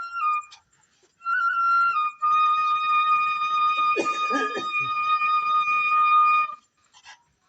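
Background music: a flute-like melody steps down through a few notes, then holds one long note that stops about two-thirds of the way through. A short rough sound, like a cough, cuts through the held note about halfway in.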